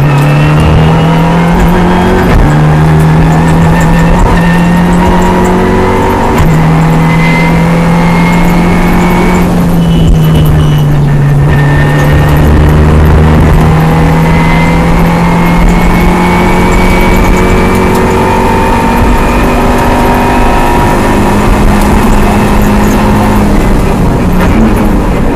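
Renault Mégane N4 rally car heard from inside the cabin at stage pace. The engine runs hard under load with a couple of quick gear changes early on and a brief lift off the throttle about ten seconds in, over steady road and tyre noise.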